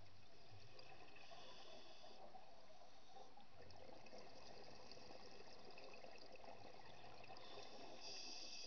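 Faint underwater ambience picked up by a diver's camera in its housing: a steady fine crackling hiss. A higher hiss swells about a second in and again near the end.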